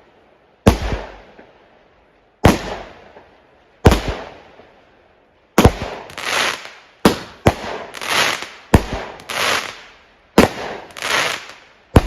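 Fireworks going off in a string of loud, sharp bangs. At first they come singly about a second and a half apart. From about halfway in they come faster, each followed about half a second later by a second, noisier burst.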